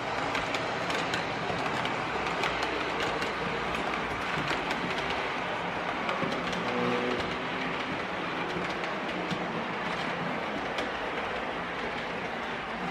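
Märklin model TEE train with its Re 4/4 I locomotive rolling along the layout track: a steady running rattle with many small clicks as the wheels pass over the rails.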